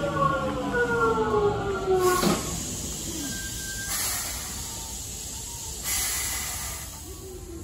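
Hankyu 8200-series train's Toshiba GTO-VVVF inverter whining with several tones that fall in pitch as it brakes into the station, cutting off sharply about two seconds in. Short bursts of hissing air follow, about two seconds apart, as the train comes to a stop.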